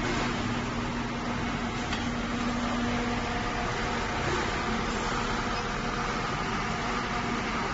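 Steady machine hum and hiss with faint steady tones, one low tone dropping out about three seconds in and higher tones coming in, typical of welding equipment running on a worksite.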